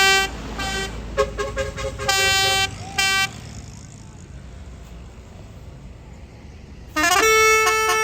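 Tour bus's Basuri telolet horn: a string of short toots in the first three seconds over a low rumble, then after a pause, about seven seconds in, a loud multi-note tune whose pitch steps up and down.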